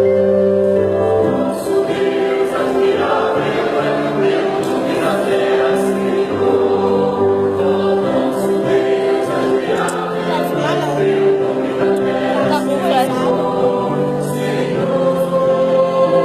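Choir singing a Christian worship song in several-part harmony, holding long chords that change every second or two.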